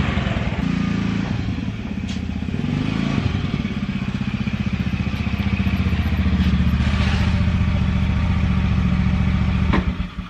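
Motor scooter engine running under way, its pitch dipping and then rising again about two to three seconds in, then holding steady; it cuts off abruptly near the end.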